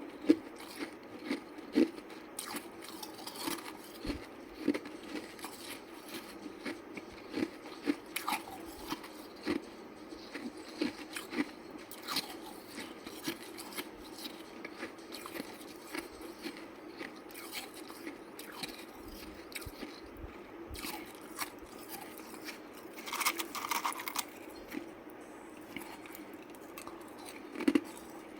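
Hard ice being bitten and chewed close to the microphone: a steady run of sharp, irregular crunches, with a louder burst of crunching about 23 seconds in.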